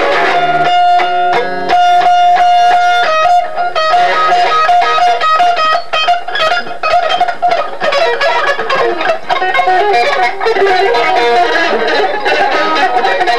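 Electric guitar music: a held note about a second in, then a quick run of changing single notes.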